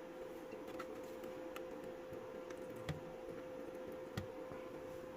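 A few faint, scattered clicks and light knocks of plastic as a cordless vacuum cleaner's battery pack casing is handled and pried at, over a steady faint hum.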